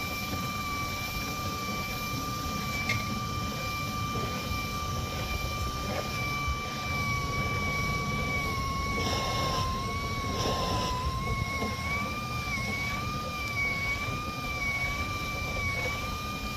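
An electric motor running with a steady high-pitched whine that wavers slightly in pitch in the second half, over a low wind rumble on the microphone.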